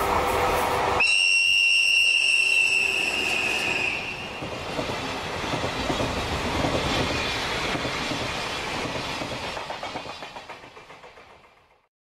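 Train running on rails: about a second in, a high steady tone sounds for about three seconds over the running noise, then rhythmic wheel clatter over rail joints carries on and fades out.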